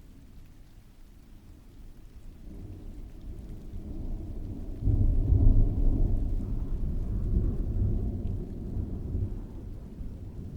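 Rolling thunder over falling rain: a low rumble builds a few seconds in, swells sharply about five seconds in, then slowly dies away toward the end.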